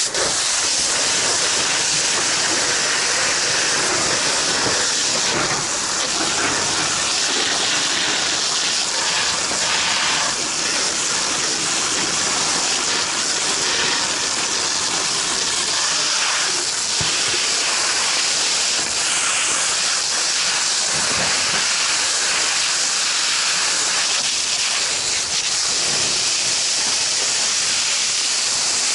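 Fire hose nozzle spraying a water jet onto burning debris: a loud, steady hiss that comes on abruptly and holds evenly.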